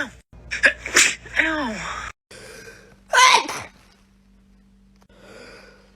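A person sneezing twice, about a second in and again about three seconds in. Each sneeze is a sudden burst followed by a voiced tail that falls in pitch.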